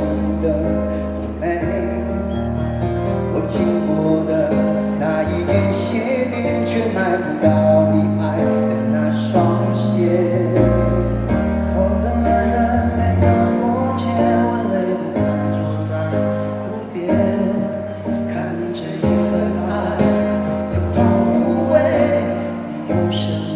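Backing music of a pop song in an instrumental passage, with a moving bass line, sustained chords and regular drum and cymbal hits; little or no singing.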